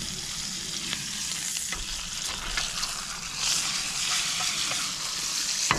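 Steak sizzling in butter and rosemary in a cast-iron skillet, with a few light clicks as a spoon bastes it in the tilted pan.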